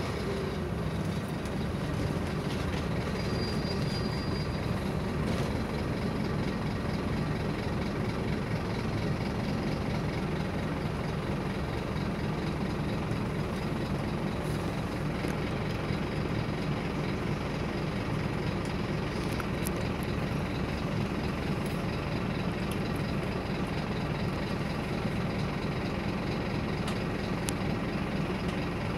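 Scania OmniLink CK270UB city bus heard from inside the passenger cabin, running with a steady low drone of engine and road noise. A few faint clicks of rattling come about two-thirds of the way through.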